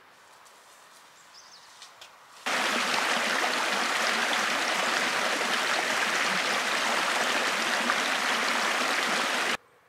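Small mountain stream rushing and splashing over rocks: a loud, steady rush of water that starts suddenly about two and a half seconds in and cuts off just before the end, after a quiet, faint outdoor background.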